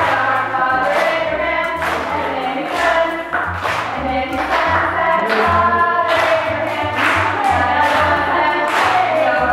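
Choir singing to music with a steady beat of about two strokes a second and a deep bass line.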